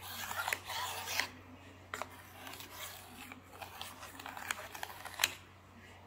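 A thin stick drawn through cake batter in a metal baking pan: soft scraping and swishing, loudest in the first second or so, with several sharp ticks as the stick knocks against the tin.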